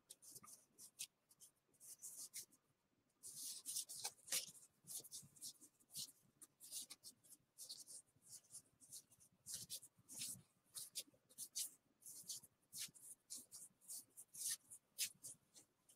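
Gypsy Queen baseball cards being flicked through one by one in the hands: faint, quick papery flicks and brushes of card stock, a few a second, coming steadier about three seconds in.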